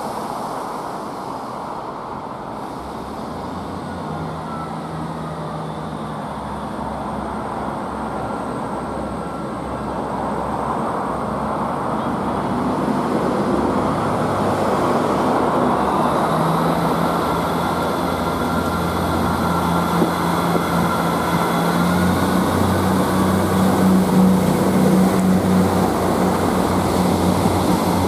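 ScotRail Class 158 diesel multiple unit, three units coupled, drawing steadily closer and passing close by. Its underfloor diesel engines get louder throughout, and the engine note rises in the second half.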